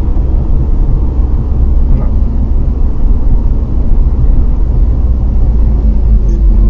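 Motor vehicle running, a loud steady low rumble.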